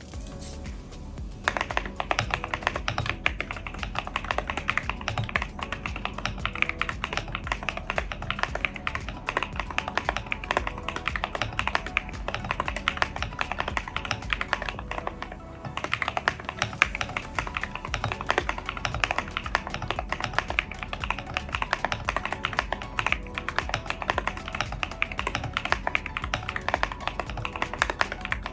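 Fast continuous typing on a mechanical keyboard fitted with AKKO Cream Yellow Pro linear switches, dense key clacks starting a moment in, with a brief pause about halfway. Background music plays underneath.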